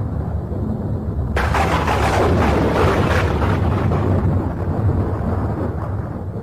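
Deep, loud rumble, with a sudden crash about a second and a half in that crackles and fades away over about two seconds.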